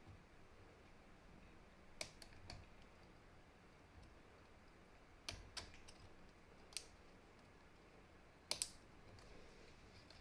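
Sparse light metallic clicks as a thin pick works the coil spring on an impact driver's quick-release bit holder, about six small ticks a second or more apart over faint room hiss.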